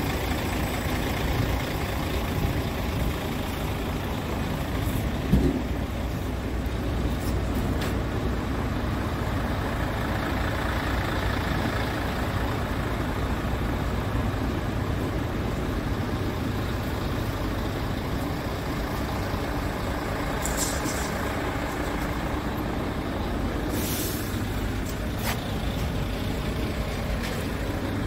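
Scania P truck's diesel engine idling steadily, with a single thump about five seconds in.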